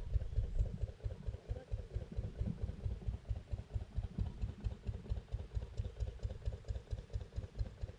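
An engine idling, heard as a steady, rapid low pulsing of several beats a second.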